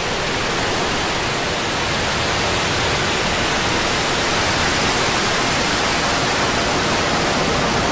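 Falcon 9 Full Thrust rocket's first-stage engines at liftoff: a loud, steady rushing roar of rocket exhaust as the vehicle climbs off the pad. The nine Merlin 1D engines are at full thrust.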